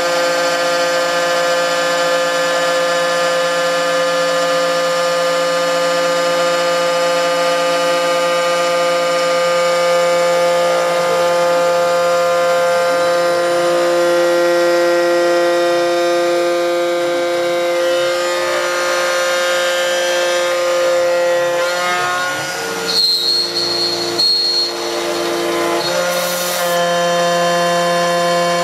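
CNC-retrofitted drill-mill milling a metal plate with an end mill: a steady machine whine of several held tones from the spindle and axis drives. The pitches step to new values as the feed changes, with a few unsettled seconds about three quarters of the way through.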